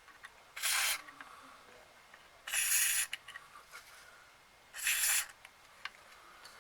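Aerosol cleaner spray can giving three short hissing bursts of about half a second each into the amplifier's potentiometers, cleaning the pots to stop them crackling.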